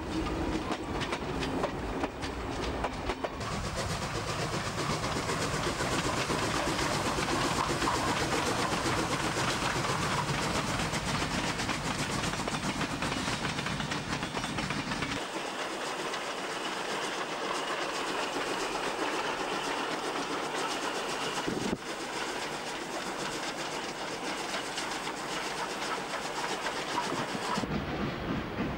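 Steam-hauled passenger train running past, its carriage wheels clattering over the rail joints, behind NSW 30 class steam locomotive 3001. The sound changes abruptly about halfway through and again a few seconds later.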